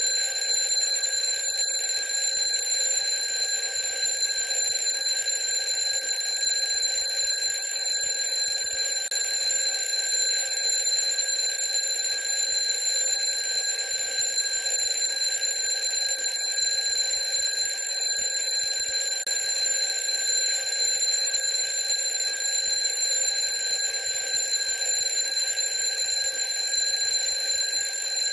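Junghans twin-bell mechanical alarm clock ringing without a break, its hammer striking rapidly between the two metal bells on top to give a steady, high metallic ring.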